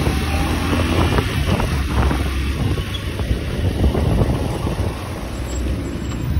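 A road vehicle driving, with steady engine and road rumble and wind on the microphone.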